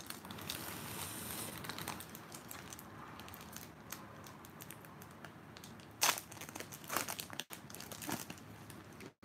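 Foil Pokémon booster pack wrapper crinkling as it is handled and torn open, with louder sharp crackles about six and seven seconds in.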